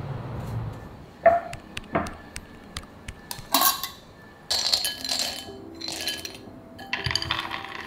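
A glass jar knocked down twice on a kitchen countertop with sharp clinks, then whole almonds poured from the jar into a glass bowl, rattling and clinking in several bursts.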